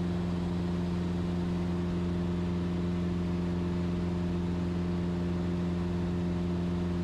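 Cessna 172's piston engine and propeller droning at a steady pitch while climbing.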